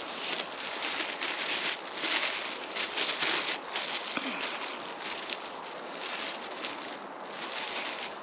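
A clear plastic bag crinkling and rustling in the hands as it is opened and handled, in a run of short bursts over the first four seconds or so, then fainter handling.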